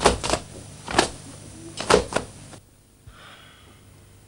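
Martial-arts fight sound effects: about five sharp whacks of blows landing in quick succession, ending suddenly about two and a half seconds in.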